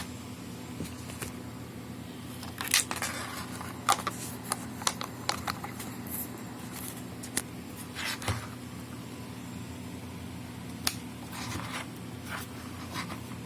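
Handling noise from unboxing a USB 3.0 hard-drive enclosure: scattered sharp clicks and short rustles of the plastic case and its packaging, over a steady low hum.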